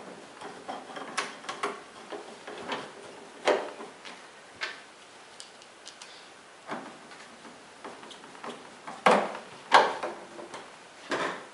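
Irregular clicks and light knocks of screws and a screwdriver being worked into new hinges on a chest freezer lid. Two louder knocks come close together near the end, with another just after.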